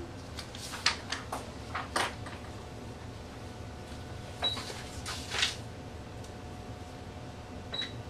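Scattered sharp clicks and two short high beeps over a steady low hum: controls being pressed on an ultrasound machine during a scan.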